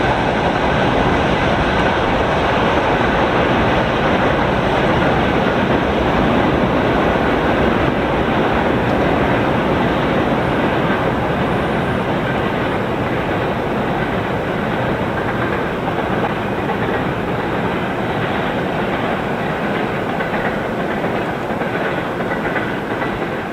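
Freight wagons of a mixed goods train rolling past, their wheels clattering over the rail joints in an uneven rhythm: the axle spacing differs from wagon to wagon, so the clickety-clack keeps falling out of step. The clatter eases off near the end.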